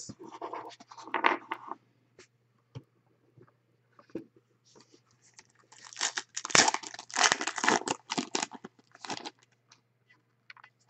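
A trading-card pack's foil wrapper being torn open and crinkled: light rustling at first, a few small clicks, then a dense burst of tearing and crinkling from about five seconds in to nine and a half.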